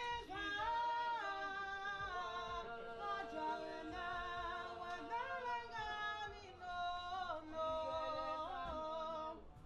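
Two women singing together unaccompanied, in long held notes that slide from one pitch to the next, breaking off just before the end.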